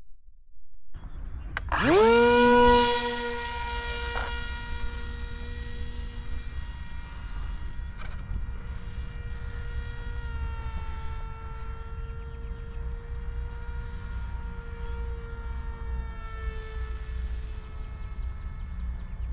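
Multiplex EZ Star foam pusher glider's electric motor and propeller spinning up sharply about two seconds in, loudest for a second or so, then a steady whine as the plane climbs away, its pitch dipping slightly now and then. A low rumble runs underneath.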